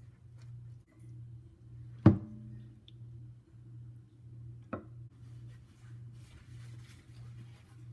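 A steady low hum with two sharp knocks: a loud one about two seconds in that rings briefly, and a softer one nearly five seconds in.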